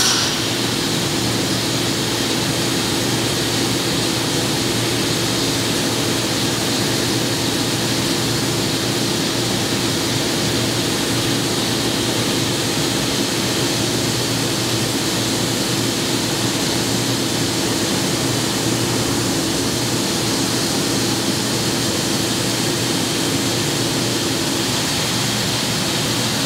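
CNC vertical milling machine running a tapping cycle under flood coolant: a steady hiss of coolant spray over the even hum of the running machine.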